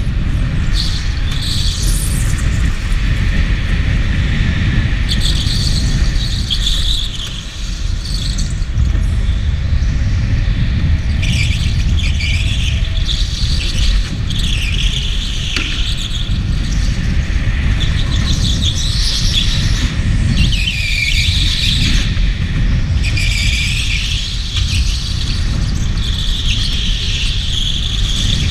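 Electric go-kart's tyres squealing again and again through corners on a smooth concrete floor, over the steady low rumble of the kart running.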